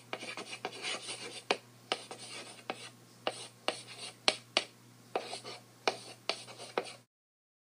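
Chalk scratching and tapping on a blackboard as words are written out, a short stroke at a time, over a faint steady low hum. It cuts off to silence about seven seconds in.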